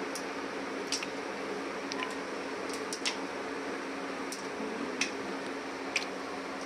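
Cumin seeds crackling in hot oil in a pan: about ten scattered sharp pops over a steady hum and hiss.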